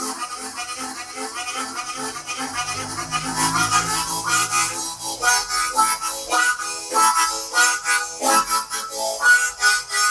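Harmonica in A playing the classic train imitation: rhythmic chugging chords, about four pulses a second. About halfway through the pulses become slower and more tuneful, with clearer held notes.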